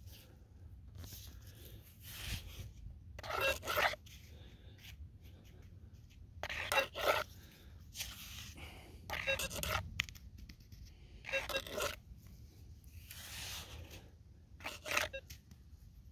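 Hand digging scoop scraping and biting into dry clay soil, about five strokes a few seconds apart, as scoops of dirt are dug and tipped onto a metal detector's coil to check for gold.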